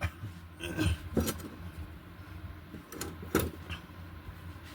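A few short clinks and taps of small hard objects being handled, over a faint steady low hum.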